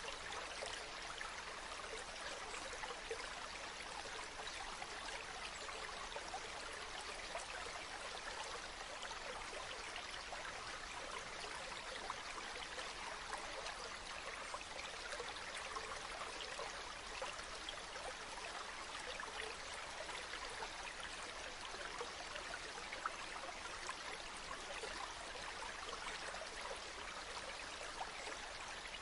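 Water of a stream running steadily over rocks, an even rush with fine splashing texture and no pauses.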